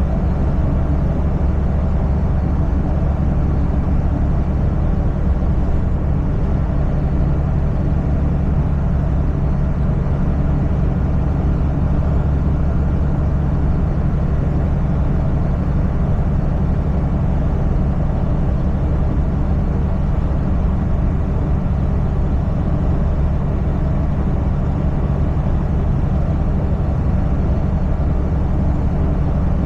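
Semi truck's diesel engine running steadily with road noise, a constant low hum at an even speed.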